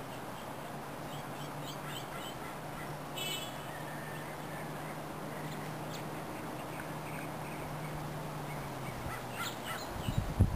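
Red-breasted nuthatch calls over a steady low hum: faint scattered chirps and one short, clear nasal call about three seconds in. Low thumps come near the end.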